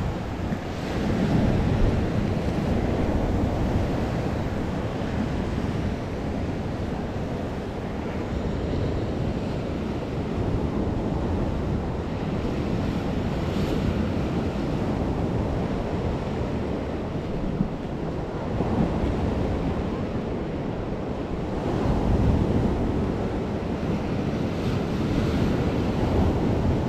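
Lake Superior waves washing against the rocky shore, mixed with wind buffeting the microphone; the surf swells louder a few times, strongest near the end.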